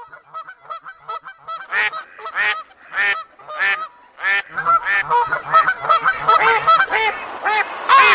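A flock of birds calling: short repeated pitched calls, faint and evenly spaced at first, louder from about two seconds in, many overlapping by the second half.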